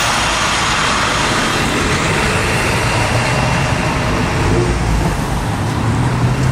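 School bus driving past close by, its engine and tyres on the road, blending into steady traffic noise with a low engine hum in the second half.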